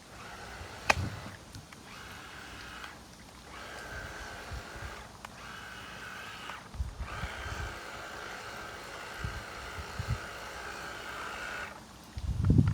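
Motor of a small radio-controlled boat whining steadily, cutting out briefly several times and starting again as the throttle is worked. There is a sharp click about a second in and some low bumps.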